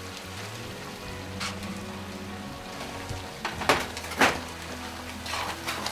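Gentle sizzling in a large frying pan on a gas burner; about three and a half seconds in, a metal spoon starts stirring the mixture, with a few sharp scrapes against the pan.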